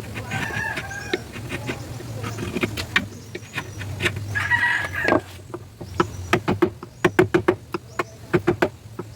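Mallet striking a carving chisel into ironwood: sharp knocks, scattered at first, then a steady run of about four a second through the second half. A chicken clucks and calls in the first half, over a steady low hum.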